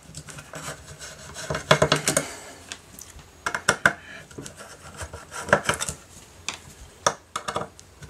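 Fingers scratching, picking and tapping at the aluminium case of a Gables ATC controller, in short clusters of scrapes and clicks a second or two apart.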